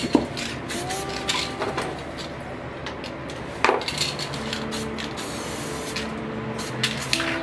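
Aerosol spray-paint can spraying in a series of short hisses, the strongest about three and a half seconds in.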